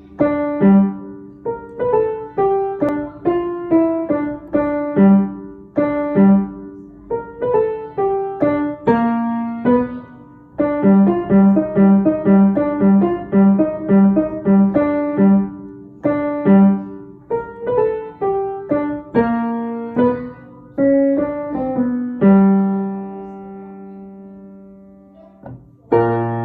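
Piano playing a blues tune: struck notes and chords that die away, with a run of quickly repeated notes in the middle. Near the end a chord is held for a few seconds, then one more chord is struck.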